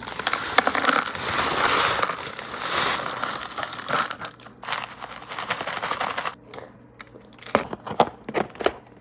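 Homemade granola clusters pouring off crinkling baking paper into a clear plastic container, a dense crunchy rustle that is loudest in the first three seconds, followed by lighter rustling. Several sharp plastic clicks near the end as the container's lid is fitted on.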